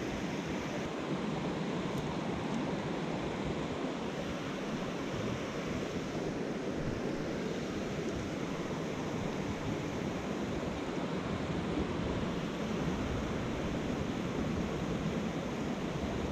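Small freestone mountain stream running, a steady, even rush of water.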